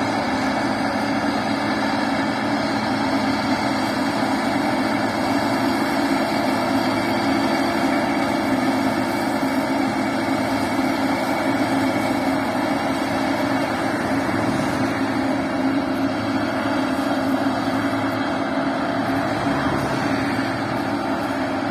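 Claas Lexion 550 combine harvester running while harvesting grain: a steady drone of engine and threshing machinery with a strong low hum.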